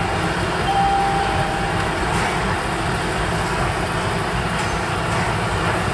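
Steady restaurant room noise: a constant rumbling hum, with a faint thin tone for about a second near the start.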